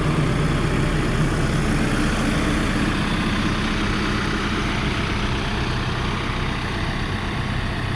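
Case 580 Super N backhoe loader's diesel engine idling steadily.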